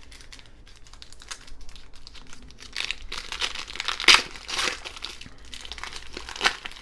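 Wrapper of a baseball card pack crinkling as it is handled and opened by hand: a run of crackles that grows louder and busier about three seconds in, with a couple of sharper crinkles.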